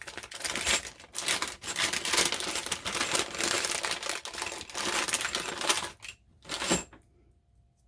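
Rapid, irregular clicking and rattling of metal parts and hand tools against a computer tower's steel case while a power supply is being screwed in. It stops about six seconds in, after one last short clatter.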